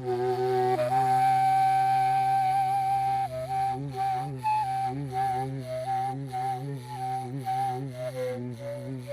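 Kazakh sybyzgy flute playing a melody over a steady low drone. It opens on a long held note, then breaks into a quicker phrase of short, ornamented notes a few per second.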